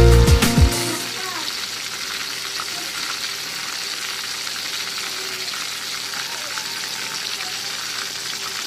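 Whole stuffed milkfish frying in oil in a metal pan, a steady sizzle. Background music cuts off about a second in.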